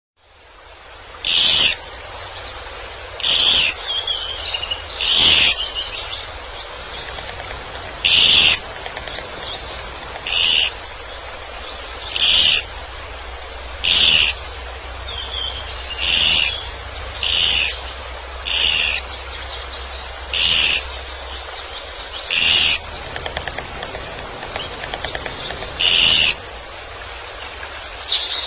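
Woodpecker calling in the forest: a short, high, loud call repeated about every two seconds, with fainter chirps between.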